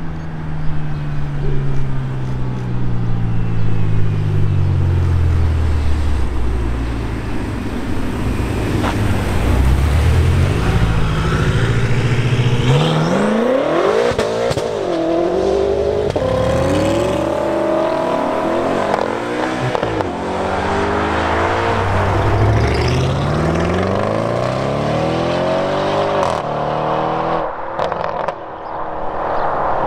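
Performance cars accelerating hard away one after another. First a BMW M5 saloon's engine note falls away as it drives off. From a little before halfway, an Audi RS6 Avant revs up through several gears, each rise broken by a sudden drop at the upshift, and a Toyota Supra comes through near the end.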